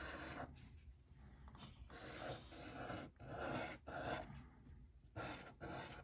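Sharpie fine-point marker drawing on paper: a run of short, faint scratchy strokes, about two a second with brief pauses, as it traces a bumpy scalloped outline.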